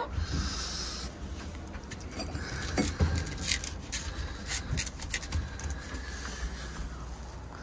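Wind buffeting the microphone as a steady low rumble, with scattered light clicks and scrapes through the middle.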